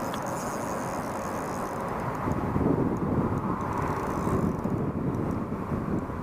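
Wind buffeting the camera microphone: a steady low rumble that turns louder and gustier about two seconds in.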